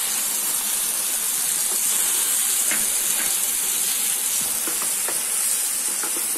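Onions and ginger garlic paste sizzling steadily in hot oil in a frying pan as tomato puree goes in, with a few light scrapes of a wooden spatula stirring.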